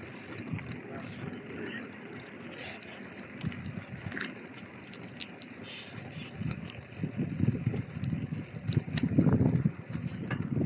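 Bicycle being ridden, with scattered clicks and rattles from its parts over a rough low rumble that grows louder in the last few seconds.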